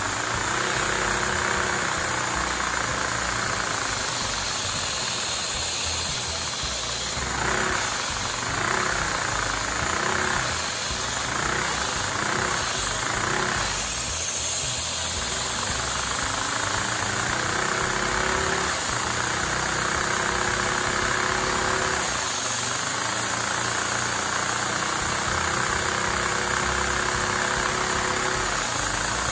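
Vacuum cleaner running, sucking air through a LEGO inline four-cylinder vacuum engine to drive it, with the clatter of the engine's plastic parts. The motor's pitch wavers up and down repeatedly about seven to fourteen seconds in, then holds steadier with brief dips.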